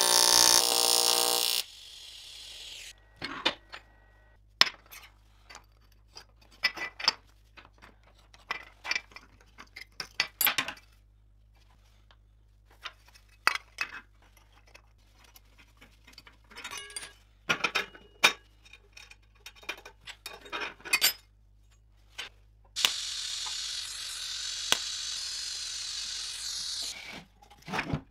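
TIG welding arc buzzing loudly and cutting off suddenly just under two seconds in, followed by scattered clinks and taps of small metal parts being handled and clamped. Near the end a loud steady hiss runs for about four seconds, then more clinks.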